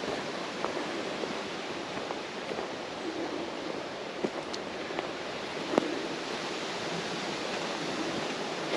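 Steady rushing wind in the trees and on the microphone, with a few short sharp clicks scattered through it, the loudest about two-thirds of the way in.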